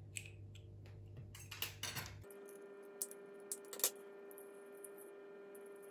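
Faint scattered clicks and light scrapes of a thin pointed tool picking at the plastic end piece of a Dyson V15 floor head, loosening hair wound around it. A faint steady hum sits behind from about two seconds in.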